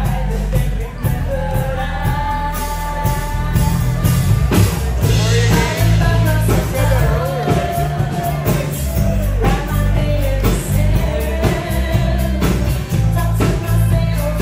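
Loud rock-style band music with a lead singer over a heavy bass line and a steady drum beat.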